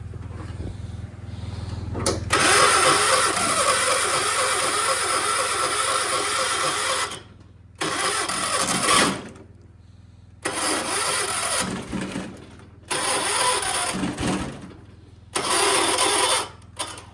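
Electric starter on a 1976 John Deere 300 lawn tractor cranking in one long burst of about five seconds, then four short bursts with pauses between, over a steady low hum. The owner blames a failing starter and a damaged flywheel for the hard start.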